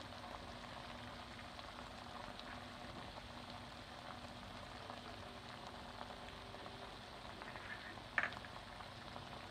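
Chicken gizzards and livers sizzling faintly in oil in a frying pan, a steady bubbling as the water has cooked off.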